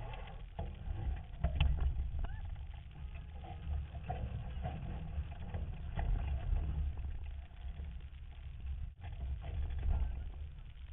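Wind buffeting the microphone over open water, a gusting low rumble, with scattered knocks and clatters from small sailing boats.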